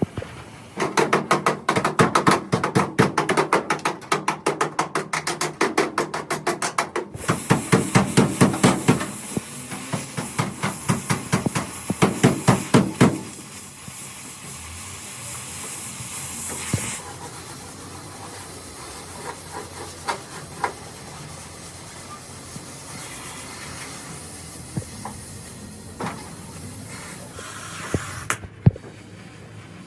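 Rapid hammering on car-body sheet metal, several blows a second, for about twelve seconds with a brief pause midway, then a few single knocks.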